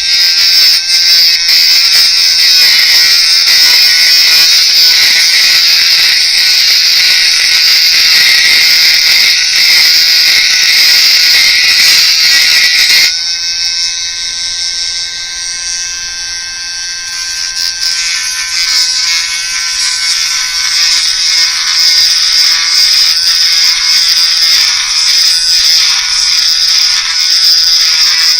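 Dremel rotary tool with a sanding disc grinding down hard plastic, a steady high-pitched whine. About halfway through it eases off into a quieter, cleaner tone, then turns harsher again toward the end.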